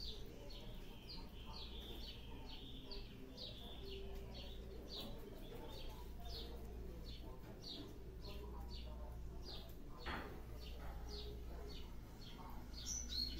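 Faint chirping of a small bird, short falling chirps repeating about one to two times a second, over a low steady hum.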